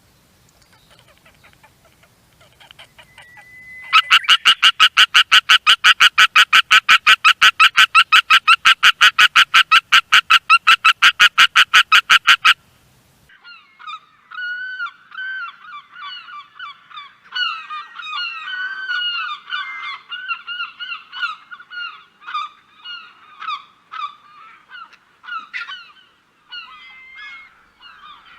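Animal calls: a loud, rapid, very even run of repeated calls lasting about eight seconds, then after a short break many irregular overlapping calls.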